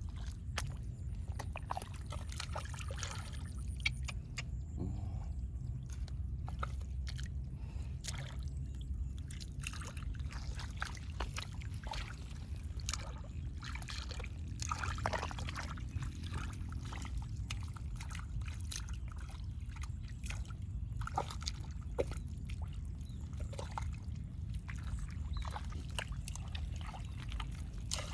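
Water sloshing and splashing in irregular small bursts over a steady low rumble.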